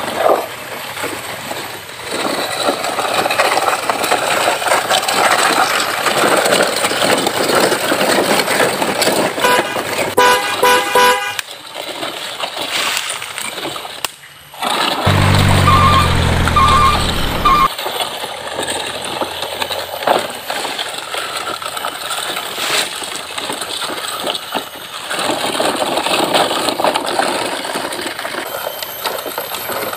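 Truck horn honks over a steady rushing noise: a quick run of short toots about ten seconds in, then a deep horn blast lasting a few seconds with three short high beeps over it around the middle.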